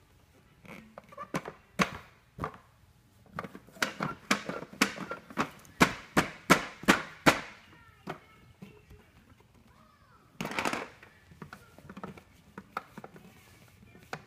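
A small child's hand slapping a hard plastic toy again and again: sharp smacks that come faster and louder in the middle, about two to three a second at their busiest, then a few scattered knocks.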